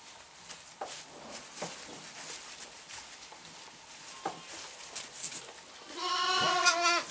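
A lamb bleats once near the end, a high call about a second long. Before it, short faint sucking noises come from lambs feeding at the rubber teats of a wall-mounted lamb feeder.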